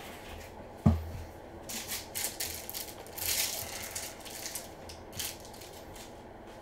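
Crinkling and rustling of a foil trading-card pack being opened and the cards slid out and handled, in scattered short bursts, with one sharp knock on the table about a second in.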